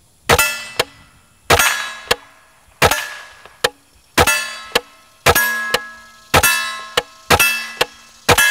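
Eight suppressed shots from an integrally suppressed Henry AR-7 .22 semi-automatic survival rifle, about one a second, each followed by the ringing of a struck steel target and a small sharp click shortly after.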